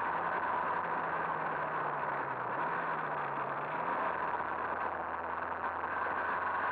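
Two-stroke moped engine running at steady speed while riding on a gravel road, under a constant rush of wind and tyre noise. The engine note drops a little around the middle and then holds steady.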